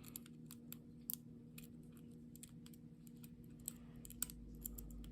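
Faint, scattered light metallic clicks of a lock pick and tension wrench working the pins of a pin-tumbler lock that feels full of serrated pins, with pins being let drop after oversetting. A steady low hum runs underneath.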